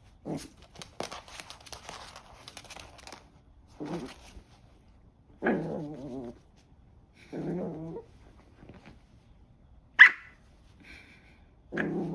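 Three-month-old Maltese puppy growling in several short bouts, with a single sharp yip about ten seconds in. Rustling and scuffling in the first few seconds.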